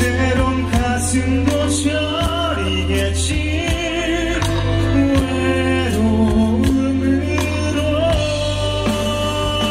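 A man singing live into a handheld microphone over a live band, with held notes that waver in vibrato above a steady bass line and regular percussion hits.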